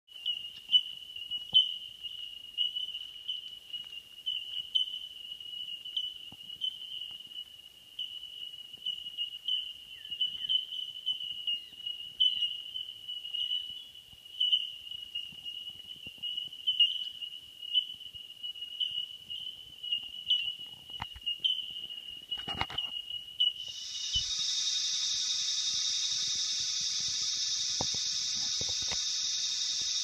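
Insects calling: a steady high-pitched trill that pulses a few times a second, then at about 24 seconds a louder, continuous buzz takes over.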